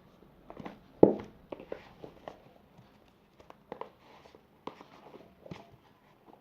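Fluffy shaving-foam slime being handled and squeezed: irregular sticky clicks and small pops, the loudest about a second in.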